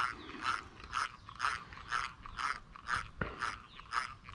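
Vintage 1950s Luxor spinning reel by Pezon et Michel cranked on a slow retrieve, its gears whirring in an even rhythm of about two turns a second.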